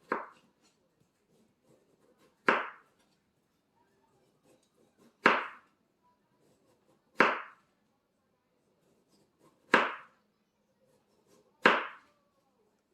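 Knife chopping down through a canary melon: six sharp chops, spaced about two seconds apart.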